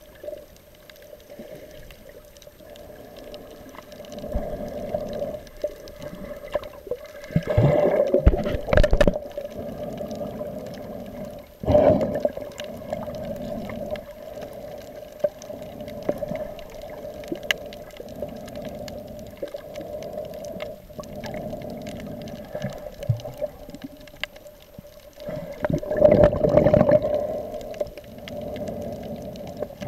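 Muffled underwater sound picked up by a camera moving through shallow reef water: a steady hum with surges of water movement, loudest about eight seconds in, again around twelve seconds and near the end.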